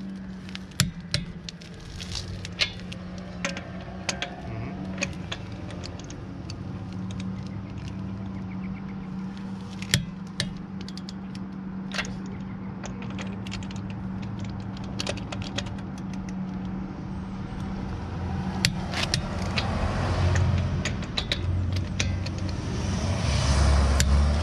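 Long-handled socket wrench working a car's lug nuts, giving sharp metallic clicks and ratchet clicking scattered throughout, over a steady low engine hum. A louder rushing swell builds near the end.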